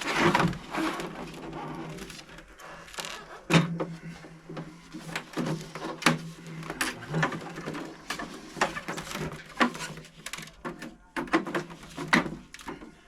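Irregular clicks, knocks and scraping from working the plastic casing of an iMac G3 apart, its snap-fit clips being pried at.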